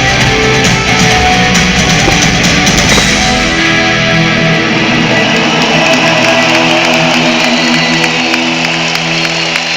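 Rock band playing live through an arena PA, with distorted electric guitars, bass and drums. About a third of the way in the drums and bass stop, and held guitar chords ring out as the final notes of the song.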